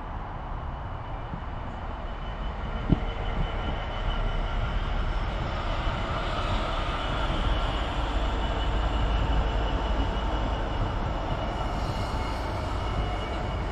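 GB Railfreight Class 66 diesel locomotive, an EMD two-stroke V12, hauling an intermodal container train past. A low rumble builds about three to four seconds in as the locomotive draws level, then carries on steadily as the container wagons roll by. One sharp click just under three seconds in.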